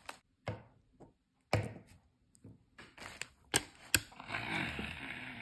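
Handling noise of plastic toys: a few sharp knocks and taps as toy dinosaur figures are moved against a wrapped Kinder egg, then a crinkly rustle of the egg's plastic wrapper starting about four seconds in.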